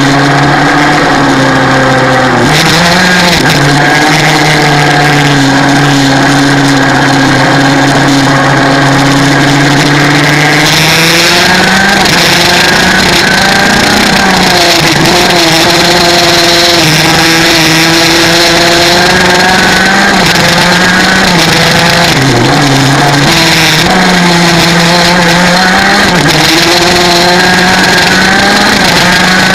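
125 cc two-stroke kart engine at full throttle, heard from on board: its pitch holds high and climbs slowly for the first ten seconds or so, then dips and rises again several times as the kart slows for the curves and accelerates out of them.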